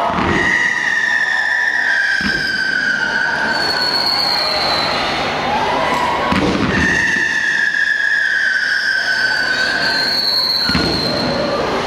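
Display fireworks going off: two long, piercing whistles, each about three seconds and sliding slowly down in pitch, with sharp bangs between them and a short rising whistle just before the second.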